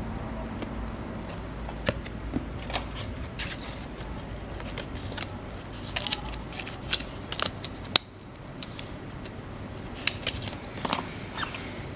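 A printed warning card and black packaging handled close to the microphone: scattered sharp clicks, taps and short rustles of card and cardboard between the fingers.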